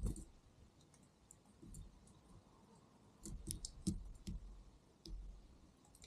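European robin at a fat-filled coconut shell feeder close to the microphone: a handful of sharp pecking taps in the middle, with soft low thumps at the start and again near the end.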